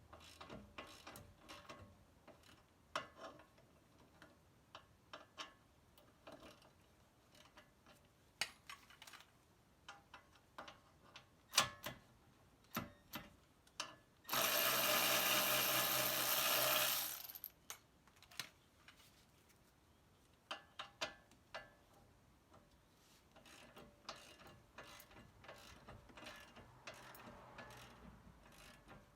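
Scattered clicks and clanks of hand tools and a ratchet wrench working on a car's front suspension bolts. About halfway through, a power tool runs loudly and steadily for about three seconds, then stops.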